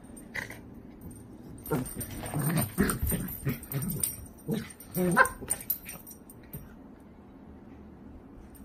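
Small fluffy dog whining and yipping in a run of short calls for about four seconds during play with a toy, stopping about six seconds in.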